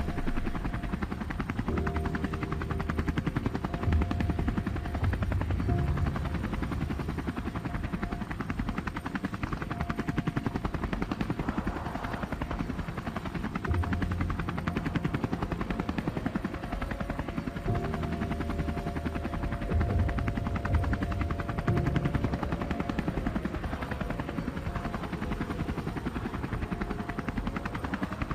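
Small quadcopter drone's propellers running continuously with a fast flutter, their whining tones gliding up and down in pitch as the drone manoeuvres.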